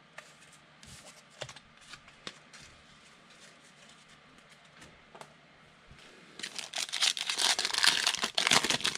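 Foil trading-card pack wrapper being opened by hand, crinkling and tearing loudly from about two-thirds of the way in, after a few faint handling clicks.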